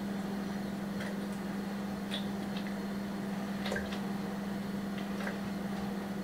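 A few faint, scattered clicks and taps of a silicone pastry brush against a plastic jug and a cake mould as liqueur is brushed onto sponge, over a steady low hum.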